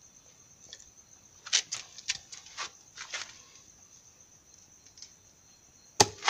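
A 1-inch PVC pipe elbow strikes down hard on a scorpion on hard ground about six seconds in, making a sharp smack. Earlier there are a few faint scattered taps. A faint, steady, high-pitched insect chirring runs underneath.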